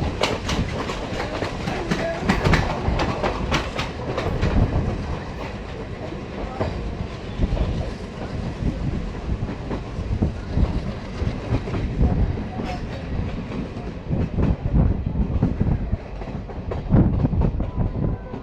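Diesel-hauled passenger train running, its wheels clattering over rail joints above a steady low rumble. The clatter is thickest in the first few seconds and thins out after that.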